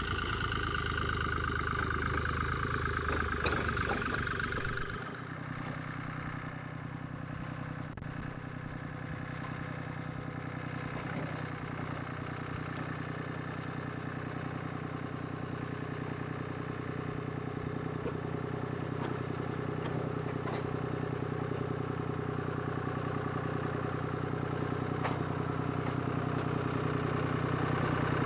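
A small narrow-gauge railway locomotive's engine running steadily. About five seconds in, the sound changes abruptly to a quieter, lower, steady running note, with a few light clicks.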